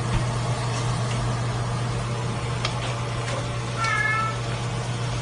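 A cat meows once, briefly, about four seconds in, over a steady low hum.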